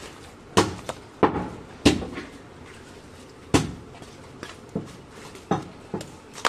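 Heavy meat cleaver chopping through a goat carcass onto a wooden chopping block: three sharp chops in quick succession about half a second in, another hard chop at about three and a half seconds, then a few lighter chops near the end.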